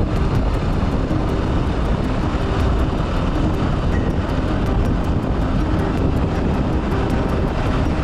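Steady rumble of wind and road noise from a vehicle moving at speed along a paved road, heaviest in the low end, with a faint fast ticking, about five ticks a second.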